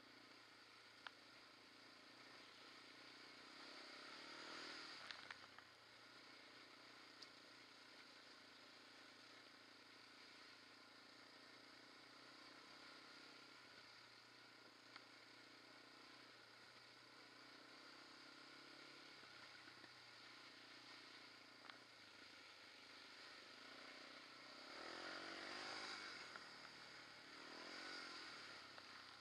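Quad bike (ATV) engine running faintly as it is ridden, steady most of the time, revving up and back down about four seconds in and again twice near the end.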